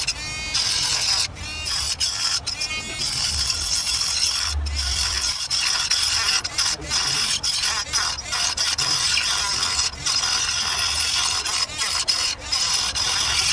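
Small rotary tool with a cutting disc grinding through the plastic case of a laptop battery pack: a steady high whine over scraping noise, broken by several brief pauses.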